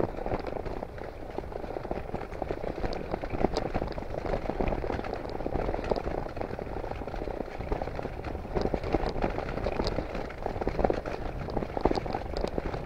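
Wind and road noise from riding a bicycle: a steady rough rushing with frequent small clicks and rattles.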